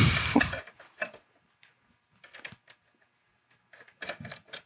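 Small metal clicks and taps of screws and a sub belt bar being fitted by hand into a race-seat mount's rails. A brief loud rush of noise cuts off in the first half second.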